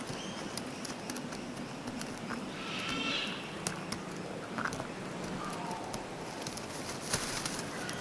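A koala's claws scratching and clicking on eucalyptus bark as it climbs, many sharp irregular clicks, with a brief bird call about three seconds in.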